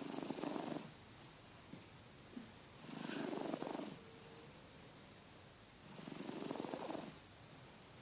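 A domestic cat snoring in its sleep: three rattling snores, each about a second long and about three seconds apart, with a high whistling hiss on each breath.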